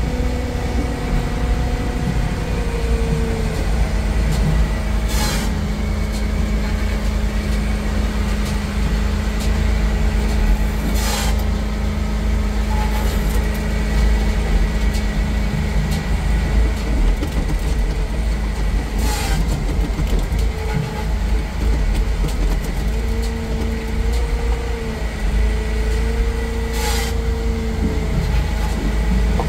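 A Hitachi ZW50 compact wheel loader's diesel engine and hydraulics running steadily, heard from inside its cab as it loads logs onto a firewood processor's deck. The engine note shifts a few seconds in and again after about twenty seconds. Four sharp knocks stand out, roughly six to eight seconds apart.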